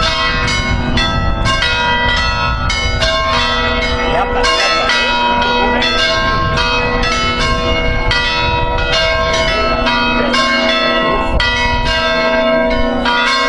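A set of five hand-rung church bells tuned in B, swinging on their wheels and striking in quick succession, about three strokes a second, with their tones ringing on over one another. It is a solemn peal calling to Mass.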